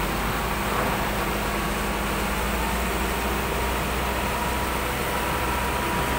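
Engine of heavy construction machinery running steadily while a box of stones is hoisted on a cable, with a low hum and a faint steady whine.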